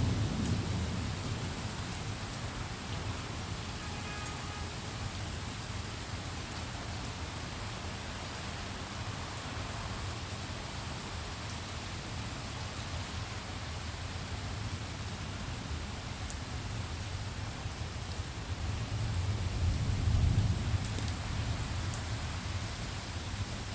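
Steady rain hissing down during a thunderstorm. A low rumble of thunder dies away at the start, and another rumble swells up and fades about three-quarters of the way through.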